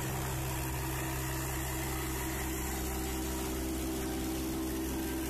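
Mini tractor engine running steadily under load, pulling a one-bottom plough through the soil, with an even low hum at a constant pitch.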